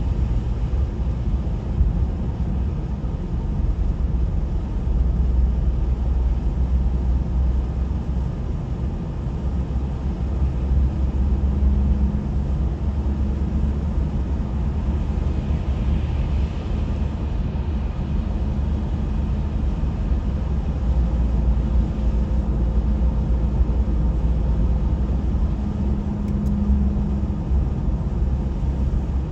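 Steady low rumble of a motor vehicle on the road, with a faint hum that rises about twelve seconds in and again near the end.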